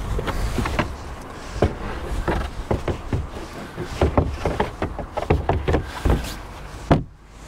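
Repeated knocks, taps and clunks of a Volkswagen ID.4's removable cargo cover being fitted back into the luggage compartment, with a sharper clunk about seven seconds in.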